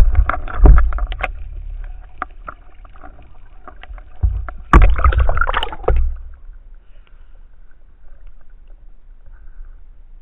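Water rushing and knocking against a speargun-mounted camera as the diver swims up to the surface, in heavy low rumbling surges at the start and again from about four to six seconds in. After that only faint splashing and ticks at the surface.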